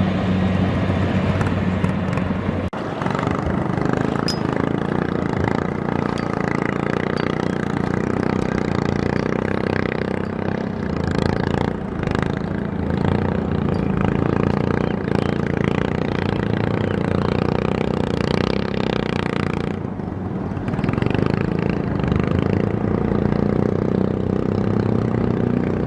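Kubota DC-70 Plus combine harvester running steadily under load, its diesel engine humming with mechanical clatter. The sound changes character about three seconds in and thins briefly about twenty seconds in.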